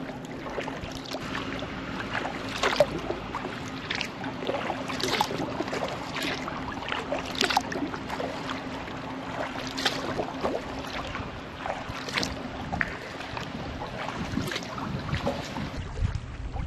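Kayak paddle blades dipping and splashing in the water about once a second, over water lapping against the hull, with a steady low hum beneath. Wind buffets the microphone near the end.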